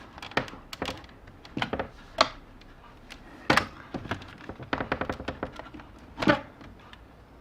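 Hard plastic parts of a keyboard case and its trackball being handled and pried at during disassembly: irregular sharp clicks and taps, with four louder knocks spread through.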